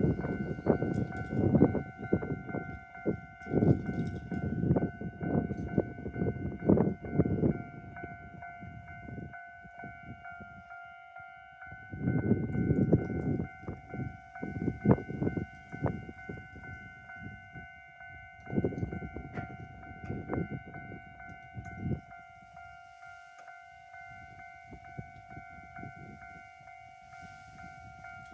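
Japanese railway level-crossing alarm in the standard JR electronic bell sound, ringing steadily throughout. Under it a train passes over the crossing, its wheels rumbling and knocking over the rail joints in loud stretches that die away after about twenty seconds.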